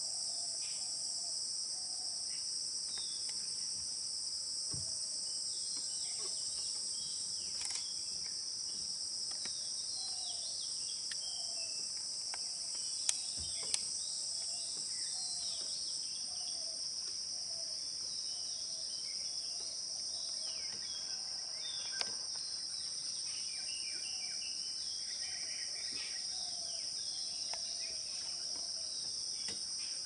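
Forest insects keep up a steady high-pitched drone. Under it, a low short call repeats about once a second, with scattered higher bird chirps. Three sharp clicks fall around the middle.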